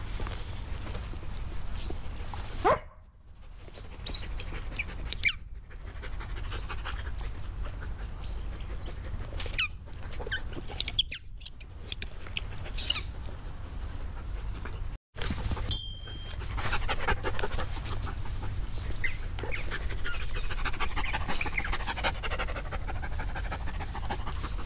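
A dog panting, the rapid breaths getting louder over the second half, over a steady low rumble. The sound drops out abruptly a few times.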